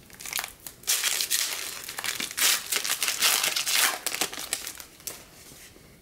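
Wrapper of a 2015 Panini Diamond Kings baseball card pack being torn open and crinkled by hand, a run of crackly bursts that dies away about five seconds in.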